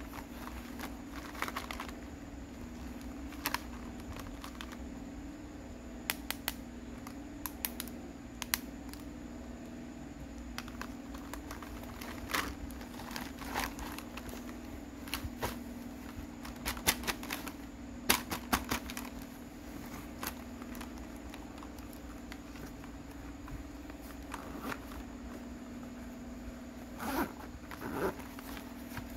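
Plastic marker caps and barrels clicking and clattering against each other as the markers are handled in a fabric pouch, with soft cloth rustling, over a steady low hum. The clicks come in scattered clusters, busiest in the middle and again near the end.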